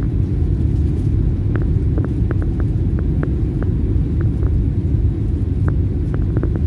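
Steady low cabin rumble of a Boeing 737 MAX 9 on approach with the flaps extended: engine and airflow noise heard from a window seat over the wing. A few light clicks sound over it.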